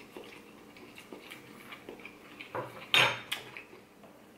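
Quiet chewing with small mouth clicks. About three seconds in, a metal fork clinks sharply against the dish, twice in quick succession.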